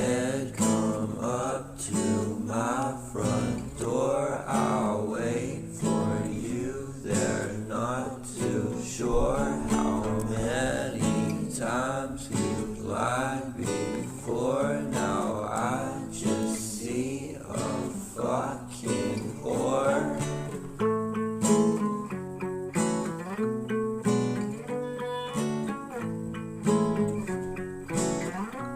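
Background music: acoustic guitar with a wavering melody line over it for about the first twenty seconds, then plainer plucked guitar notes.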